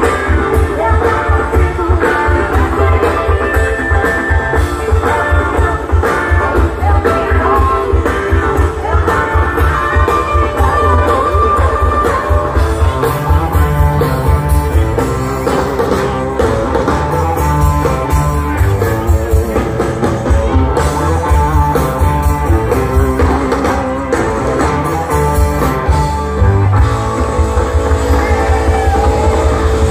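Live rock band playing through the stage PA with a heavy beat: electric guitar, bass and drums.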